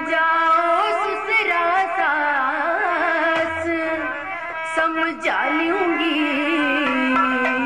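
Live Haryanvi ragni folk music: a woman singing an ornamented, wavering melody over steady held notes from the accompanying instruments.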